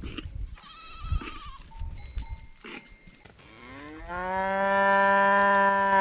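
A cow mooing: one long, loud moo that rises in pitch and then holds steady, starting past the middle. Before it, about a second in, a goat gives a short wavering bleat.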